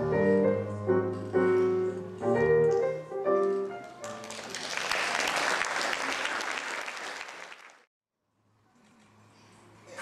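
Piano music with the notes of a melody, which about four seconds in gives way to an audience applauding. The applause swells, then fades away, and soft music starts again near the end.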